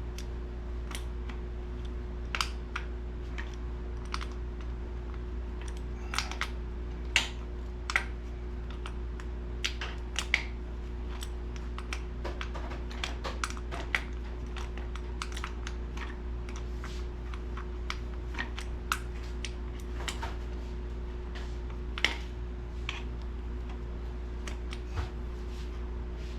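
Irregular light clicks and ticks of old, damp sandblasting media (glass bead and sand) dropping and trickling out of a sandblaster tank. A steady low hum runs underneath.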